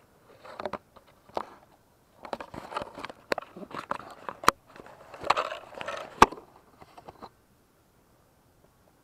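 Leaves and branches rustling, with sharp twig snaps, as someone pushes through dense bamboo undergrowth on foot; irregular bursts that stop about seven seconds in.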